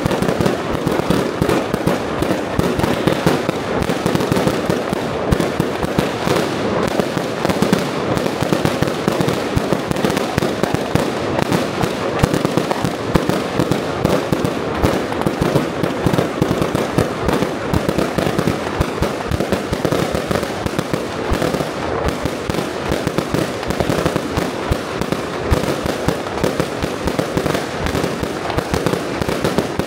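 A continuous, dense barrage of firecrackers and fireworks: rapid overlapping bangs and crackles with no let-up.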